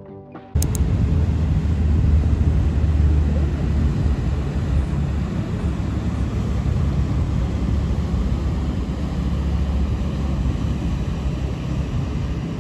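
Passenger ferry running past at speed: a steady low rumble of its engines with the rush of its wake, starting abruptly about half a second in.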